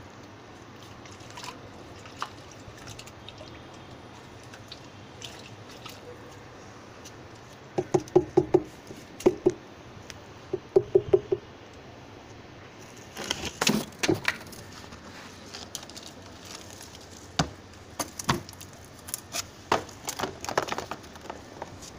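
Wooden stick scraping and knocking through moist compost in a plastic drum, in irregular strokes over the second half. About eight seconds in, and again around eleven, comes a short run of quick, sharp pitched chirps, the loudest sounds here.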